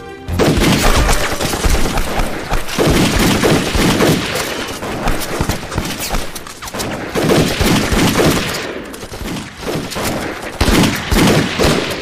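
Dense, continuous gunfire from many guns firing at once, pistol shots among them. It thins briefly a little past the middle, then picks up again.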